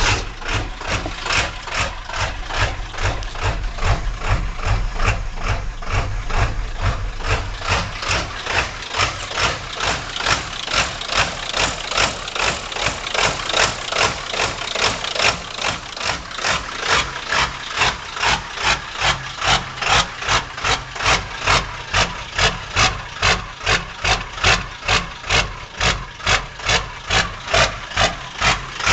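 1997 Ford Powerstroke 7.3-litre V8 turbodiesel idling roughly just after start-up, its sound surging and dipping about twice a second, the pulsing growing more marked about halfway through. This is the persistent rough idle that the owner has not cured despite replacing many sensors and parts.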